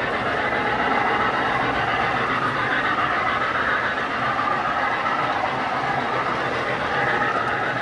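Lionel model trains running on the layout's track: a steady rumble of wheels rolling on the rails.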